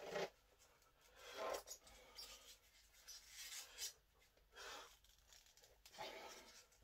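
Faint rubbing and rasping in about five short bursts, a second or so apart, from hands and cloth wraps working against a pre-kinked 6-inch grade 8.8 steel bar being bent by hand.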